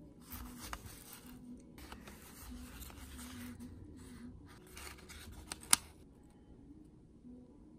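Hands handling and unwrapping an old paper mailer and cardboard film box: paper rustling and rubbing in bursts, with one sharp click a little before six seconds in.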